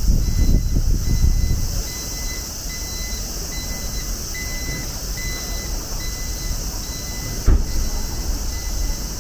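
Street ambience in strong gusty wind: low wind noise on the microphone, heaviest in the first two seconds, over a steady background hiss. A high electronic beep repeats two or three times a second throughout, and there is a single sharp knock about seven and a half seconds in.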